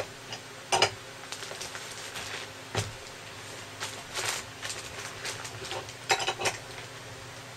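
Metal clinks and knocks of a hex wrench being worked, turned against a bolt while resting on the stand, with scattered small ticks between the louder knocks and a cluster of clatters near the end, over a faint steady hum.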